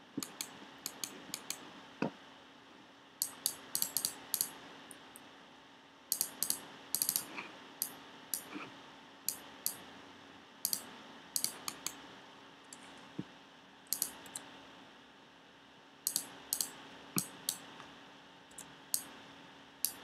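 Computer keyboard keys and mouse buttons clicking in irregular clusters, with a faint steady hum underneath.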